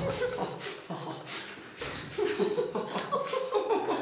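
A woman and a man laughing together, in repeated breathy bursts about twice a second.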